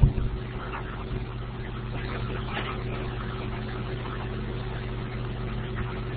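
A steady low hum, with a short thump right at the start.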